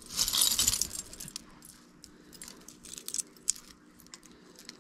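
Metal costume jewelry jangling and clinking as hands rummage through a heap of necklaces and bracelets. It is loudest in the first second, then thins to faint scattered clicks.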